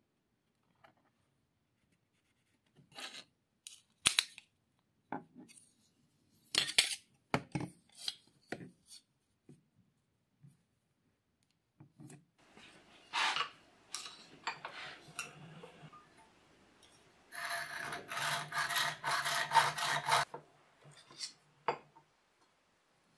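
Short clicks and knocks of a small aluminium angle piece being handled and marked, then a hacksaw cutting through the aluminium angle clamped in a bench vise: a run of rapid rasping strokes lasting about three seconds, starting some 17 seconds in.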